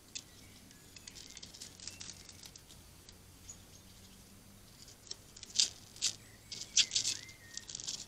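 Eurasian red squirrel scrabbling and scratching on a wooden bird feeder house: a run of short, dry scratches and clicks, sparse at first, with the loudest ones clustered in the second half.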